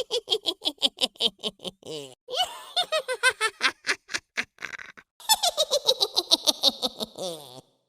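Witch cackle sound effect: high-pitched cackling laughter in three runs of rapid pulses, about eight a second, each run sliding down in pitch.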